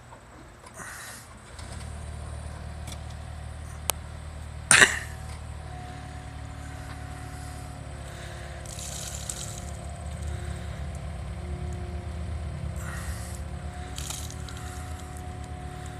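Excavator's diesel engine starting about a second and a half in and then running steadily, with a few steady whining tones over it. A sharp click comes about four seconds in and a loud clunk about five seconds in.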